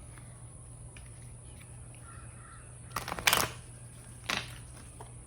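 A bird calling: a loud group of short calls about three seconds in, then one more call a second later.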